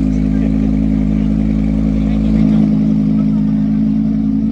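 Audi R8's V10 engine idling steadily, with a slight change in its low note about two and a half seconds in.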